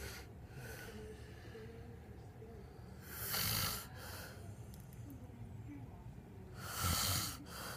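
A man snoring in his sleep: two loud snores about three and a half seconds apart, each lasting about a second.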